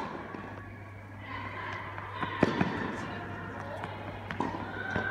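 Tennis shoes striking a hard indoor court as a player sprints, stops and changes direction: sharp foot plants, the loudest about halfway through, with short shoe squeaks between them.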